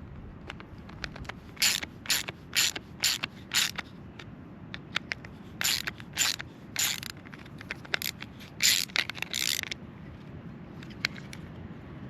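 Ratchet wrench being worked in short strokes: five quick ratcheting bursts, a pause, three more, then a couple of longer runs near the end, as small-engine parts are tightened.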